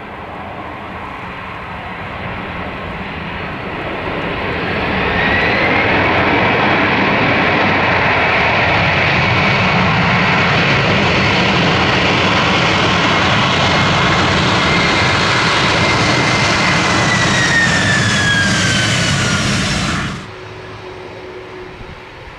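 Boeing 767 jet engines growing louder as the big twin-jet comes in along the runway, a steady high whine over the rush that drops in pitch as it goes past. The sound cuts off suddenly near the end, leaving a quieter steady hum.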